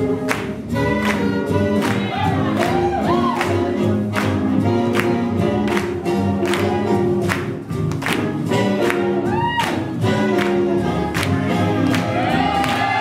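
Up-tempo swing music with a steady, evenly spaced beat, with singing voices over the band.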